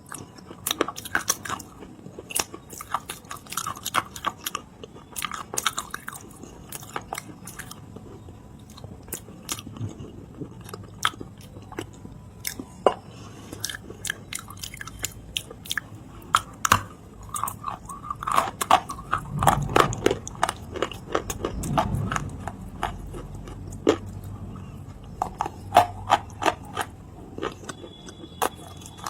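A person chewing and crunching a mouthful of edible clay, with many sharp crackling clicks throughout and a denser, louder stretch of chewing about two-thirds of the way in.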